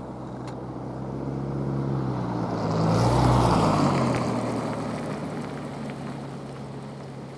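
EP20 electric locomotive passing at speed with a passenger train. The rush of its wheels on the rails swells to a peak about three seconds in and then fades, over a steady hum from its electrical equipment that drops in pitch as it goes by.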